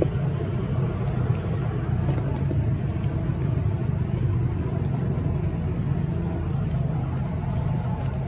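A steady low rumble with a hum in it, at an even level throughout.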